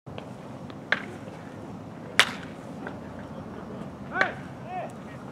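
A baseball bat hitting pitched balls in a batting cage: two sharp cracks about a second apart, the second the loudest, over a low murmur of voices. Near the end a short call is heard.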